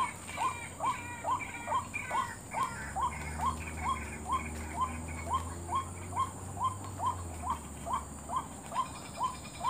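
White-breasted waterhen (ruwak-ruwak) call played as a bird-trapping lure: short upward-sliding notes repeated very evenly, about two and a half a second.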